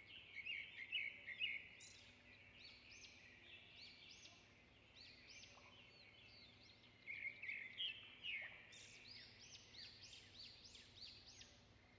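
Faint birds chirping: a busy run of short, high, rising-and-falling notes, louder about a second in and again around two-thirds of the way through.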